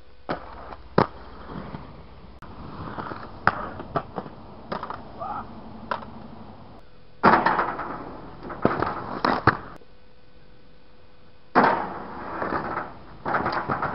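Aggressive inline skates on concrete: wheels rolling, sharp clacks as the skater lands on ledges and a metal rail, and short scraping slides along them, several times over.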